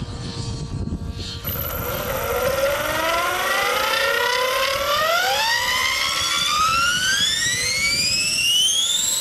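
Align T-REX 600E electric RC helicopter spooling up: the motor and gear whine starts about a second and a half in and rises steadily in pitch, over a low rumble, picked up by the camcorder mounted on the helicopter itself.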